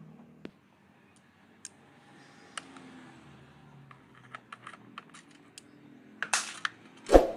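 Light clicks and clinks of hard objects being handled, a quick run of them about two thirds of the way through, then a loud clatter and a heavier knock near the end.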